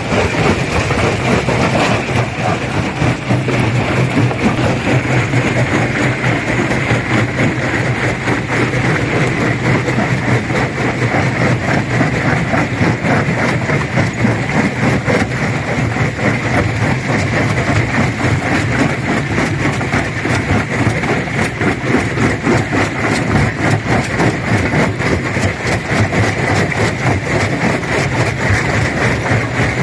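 Stone crusher machine running steadily under load: a constant low drone with dense, continuous rattling and cracking of rock being broken.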